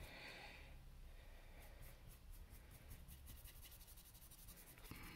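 Faint, quick strokes of a paintbrush brushing paint across a canvas.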